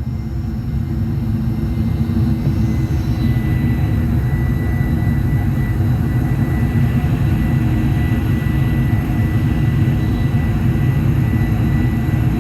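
Cabin noise inside a Boeing 747-400 during takeoff, heard from the front of the lower deck: a loud, steady low rumble from the engines and airflow, with a thin high whine running through it. The rumble grows a little louder over the first couple of seconds.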